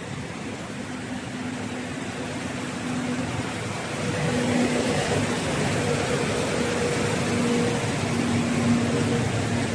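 Steady rushing air of a glass tempering furnace's quench-section cooling blower, growing louder about four seconds in, with a faint on-and-off hum underneath.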